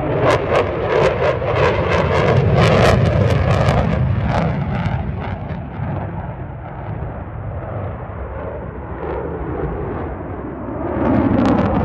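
Fighter jet flying overhead, a loud jet engine roar with rapid crackling in the first few seconds, easing off and then swelling again near the end.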